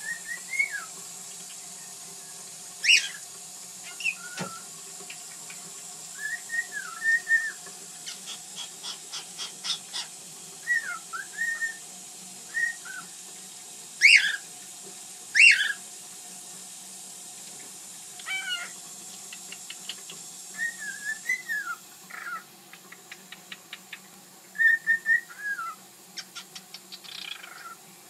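Pet cockatiel whistling short warbling phrases, broken by a few loud sharp chirps and several runs of rapid clicking.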